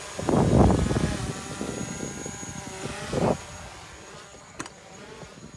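DJI Mavic Pro quadcopter's propellers hovering with a steady, high buzzing whine. Two loud, low rushes of noise break over it, one in the first second and a half and a shorter one about three seconds in, with a sharp click near the end.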